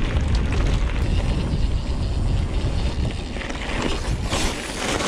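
Mountain bike being ridden over a trail: tyre noise and a steady low rumble of wind on the microphone, with a brief rush of louder noise about four and a half seconds in.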